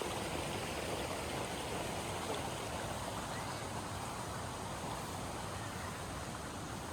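Steady outdoor nature ambience: an even rushing noise, with a few faint short chirps.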